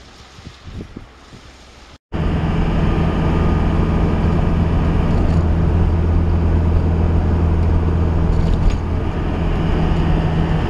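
Steady engine drone and road noise heard inside the cab of a converted-bus camper cruising at an even speed; it starts abruptly about two seconds in, after a quieter outdoor stretch.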